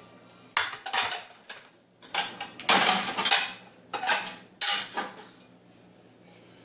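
Dishes clattering and clinking as they are lifted out of a dishwasher and knocked together, in about six separate clatters over the first five seconds.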